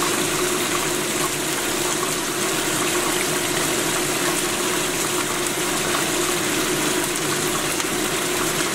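Battered chicken pieces and basil leaves deep-frying in a wok of hot oil: a steady sizzle and bubbling, with a steady low hum underneath.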